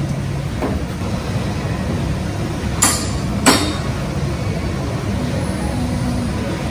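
Two sharp metal clanks of gym weight equipment, about two-thirds of a second apart, over a steady low rumble of room noise.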